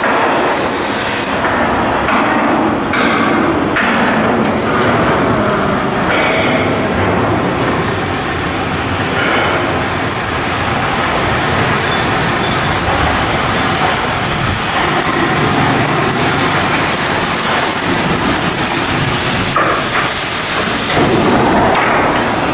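Steel shipbuilding work: a loud, steady din of machinery with scattered sharp metal knocks, the heaviest cluster in the first few seconds.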